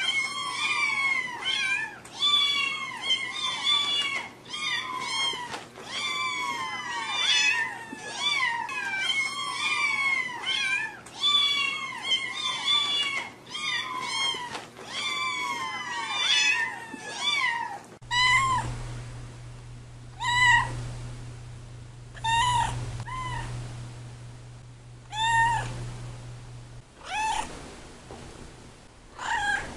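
Cat meowing: rapid high-pitched mews, several a second, until about two-thirds of the way through. Then slower single meows every second or two over a low steady hum.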